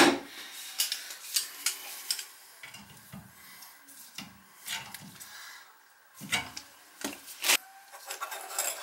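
Metal hand tool scraping and prying at a broken toilet flange set in a tile floor: a few rough scraping strokes among scattered sharp clicks and knocks. The loudest clicks come about seven seconds in, metal knocking on the flange and tile.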